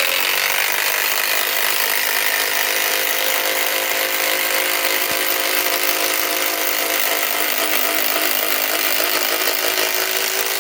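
Kobalt 24-volt right-angle cordless impact wrench driving a 6-inch TimberLOK screw into wood, running steadily for about eleven seconds and stopping suddenly as the screw seats.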